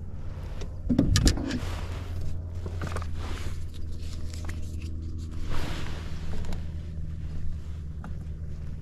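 Electric kayak motor running with a steady low hum, its pitch shifting slightly about halfway through. A few loud knocks against the kayak about a second in.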